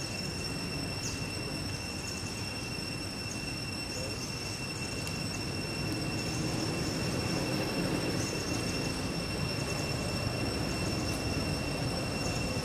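Steady outdoor background drone: a continuous high-pitched whine over a low rumble, with faint chirps, the rumble growing slightly louder about halfway through.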